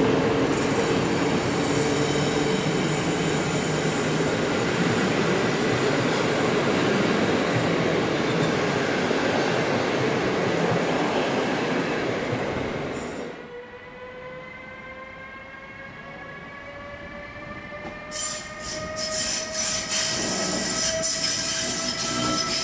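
A train of passenger coaches rolls past with steady wheel-on-rail noise for about 13 seconds, then fades. A Siemens Vectron electric locomotive then comes in with a whine of several tones slowly rising in pitch, and wheel clicks and squeals grow louder near the end as it reaches the platform.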